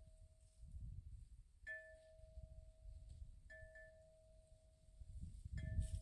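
A wind chime ringing in the breeze, struck three times at the same notes, each ringing on for a second or more. A low rumble of wind on the microphone lies beneath.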